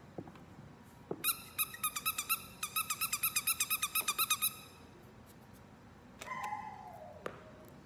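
An animal's rapid run of short, high calls, about seven a second for some three seconds, followed near the end by a single falling whine-like call.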